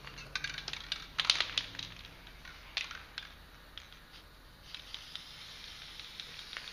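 Crackling, crinkling handling noises with scattered sharp clicks, loudest a little over a second in, then a soft steady hiss from about five seconds in.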